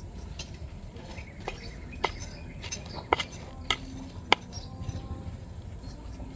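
Sharp, separate clicks and taps, about seven over a few seconds, from a metal blade tool digging into the potting mix and knocking against the pot while a banana piece is buried beside the plant.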